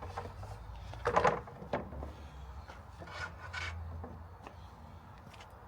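Cut lengths of timber being handled: a short, loud scrape of wood against wood about a second in, a weaker scrape around three seconds in, and a few light knocks.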